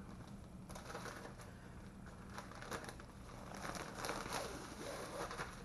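Clear plastic packaging bag crinkling and rustling in irregular bursts as hands open it and slide out a stack of folded fabric pee pads, busiest in the second half.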